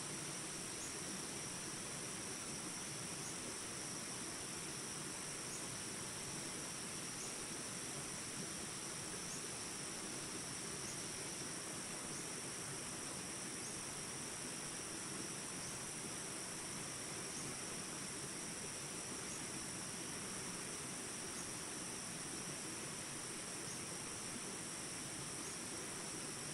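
Steady rush of flowing water with a constant high-pitched insect chorus, like crickets, trilling over it.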